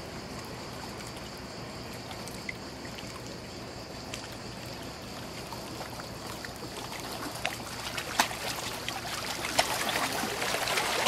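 River water lapping and splashing against the bank, with small splashes and clicks that grow louder and more frequent through the second half.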